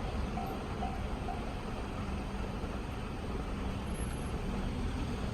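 Japanese railway level-crossing warning bell, the JR standard electronic tone, sounding about twice a second and stopping about a second and a half in. A steady low rumble runs underneath.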